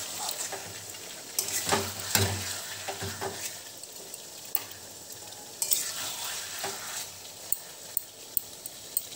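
Chicken pieces and onions sizzling in a wok, a metal spatula stirring and scraping them against the pan with irregular clinks over a steady hiss. The meat is being dry-fried (kosha) in oil with onions, no water added yet.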